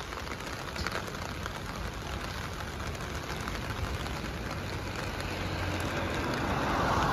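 Steady rain falling on foliage and pavement, a continuous hiss, with a low rumble underneath that grows louder toward the end.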